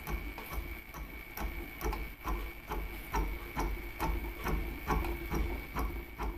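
Sieg SX3L milling machine's spindle turning a UPA3 Wohlhaupter boring head while its single-point tool cuts aluminium: a steady high whine over a low rumble, with a regular knock about twice a second as the tool bites into the work.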